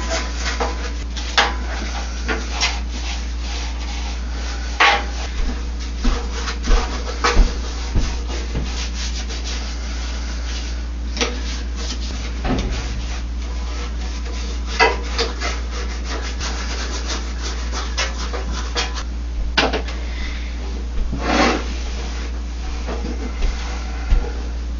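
Hand brush scrubbing grime off a washing-machine tub part with all-purpose cleaner: irregular scratchy strokes, some louder than others, over a steady low hum.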